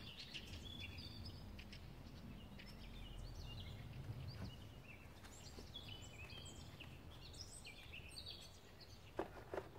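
Faint outdoor ambience: small birds chirping again and again over a low steady hum, with a few light plastic clicks near the end as the paper air filter is set into the airbox.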